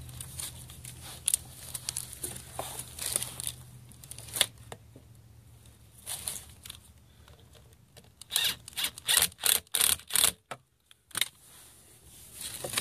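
Hand-work noise at a hot tub blower motor: scrapes and clicks as the hose clamp holding the motor's wiring is tightened, with a quick run of about eight sharp clicks about two-thirds of the way through.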